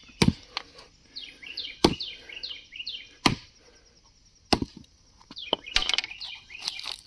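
Sharp knocks and cracks of bark being broken off a log, five or six strikes spread a second or so apart, two in quick succession near the end.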